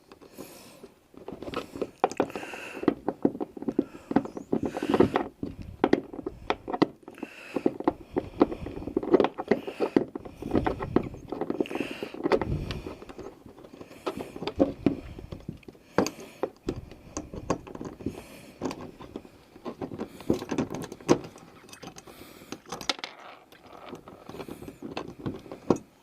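Irregular knocking, scraping and small metal clinks from a hand and tools working inside a hollow plastic kayak hull, fitting nuts and washers onto the mounting bolts of a gear track.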